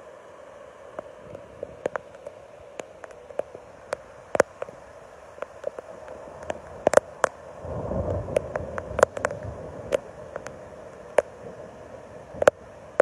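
Floodwater rushing steadily through an underpass, with many sharp clicks and taps scattered over it and a brief swell of louder, deeper noise about eight seconds in.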